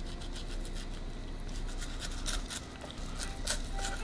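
Kitchen knife skinning a longtooth grouper (kue) fillet on a wooden cutting board: a quick run of short scraping rasps as the blade saws back and forth between the tough skin and the flesh.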